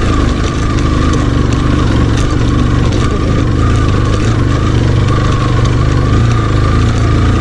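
Motorcycle engine running steadily at low revs as the bike rolls slowly over a loose rocky dirt trail.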